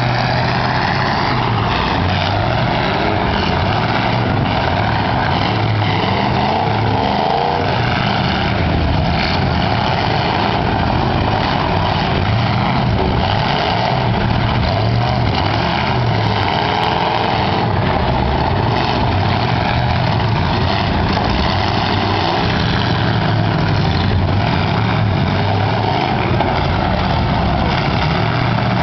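Several eight-cylinder demolition derby cars running and revving together in a dense, continuous engine din, with a few knocks from collisions.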